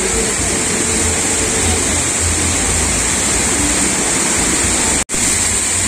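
Steady rush of water from a shallow mountain stream pouring over rocks and out of a pipe, with a low rumble underneath. The sound cuts out abruptly for an instant about five seconds in.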